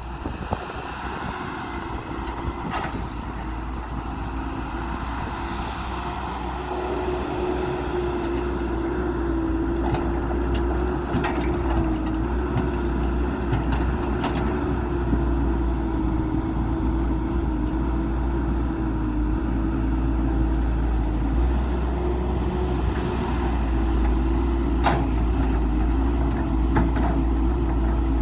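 Diesel engine of heavy construction machinery running steadily, a constant hum over a low rumble, growing somewhat louder over the first several seconds. A few sharp clanks are heard along the way.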